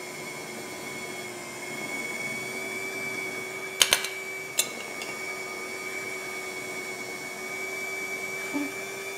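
Electric hand mixer with spiral dough hooks running steadily at speed 2, kneading soft butter into brioche dough. Two short sharp clinks stand out a little before the middle.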